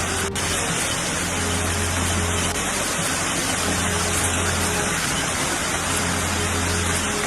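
Heavy rain falling, a steady dense hiss with a low rumble underneath.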